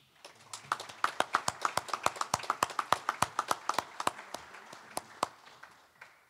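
Applause from a small group of people, each clap heard separately, several a second, thinning out and dying away about five to six seconds in.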